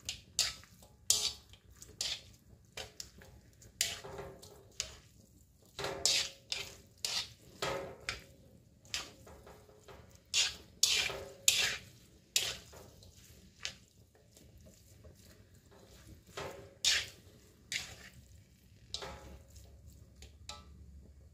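Spatula scraping and clanking against a wok as stir-fried noodles are tossed and mixed, in irregular strokes a second or so apart.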